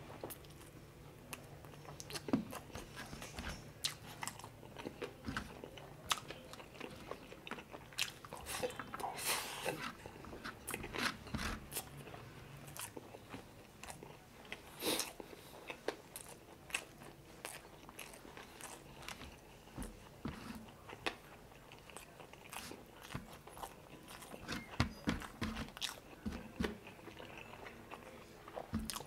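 Mouth sounds of a person eating chicken adobo and rice by hand: biting and chewing, with irregular sharp crunches and smacks.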